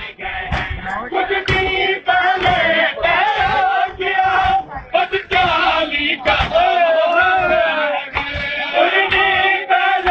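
A group of men chanting a mourning lament together, with sharp slaps of hands on bare chests (matam) keeping a steady beat.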